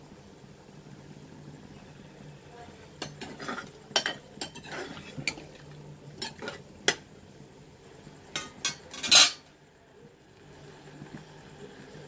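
Metal spoon stirring thick paneer apple jam in a pressure cooker pan, scraping and clinking against the pan's metal sides. It starts about three seconds in as a run of knocks, with one louder clatter about three quarters of the way through.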